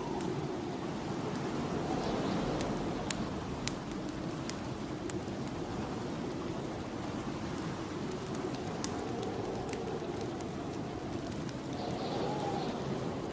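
Snowstorm wind blowing in slow gusts, its moan rising and falling, with sharp scattered pops and crackles of a wood fire burning in a fireplace.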